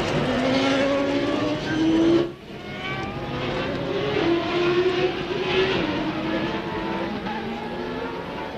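Formula One race cars' 3-litre engines at racing speed, the engine note climbing and dropping as the cars shift through the gears. The sound cuts abruptly about two seconds in.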